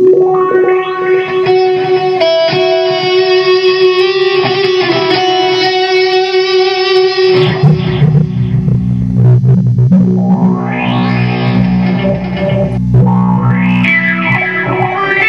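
Ibanez RG1527 seven-string electric guitar played through a Korg AX3000G multi-effects processor into a Peavey ValveKing valve amp, its effect settings moved by face tracking. A sustained note rings for about seven seconds, then low chords take over; near the start and twice later the tone sweeps from dull to bright as the effect opens up.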